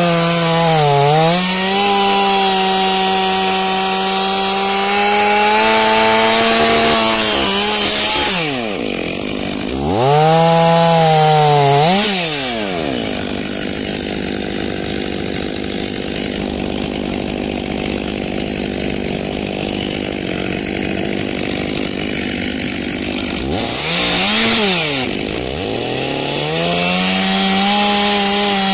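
Stihl MS 500i fuel-injected two-stroke chainsaw cutting through a log under load, its engine pitch dipping as the chain bites. Around eight to thirteen seconds in it drops and is revved back up twice. It then runs quieter for about ten seconds before a brief rev and cutting again near the end.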